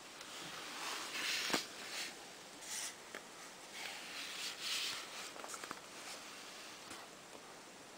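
Rustling handling noise close to the microphone as the camera is moved about, with a few sharp clicks and short bursts of hiss.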